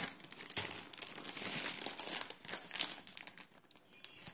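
Dry crinkling and rustling, a quick run of small crackles that dies down about three seconds in.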